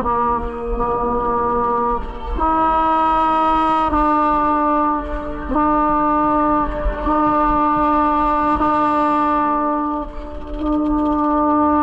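Drum corps brass section playing slow, long-held chords, the chord changing every few seconds with short breaks between phrases.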